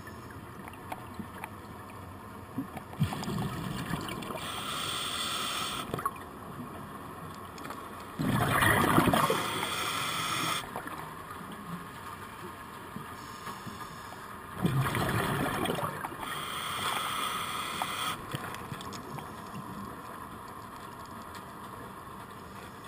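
Scuba regulator breathing heard underwater: a hissing inhale through the second stage, then a loud burst of exhaust bubbles on the exhale, repeating about twice.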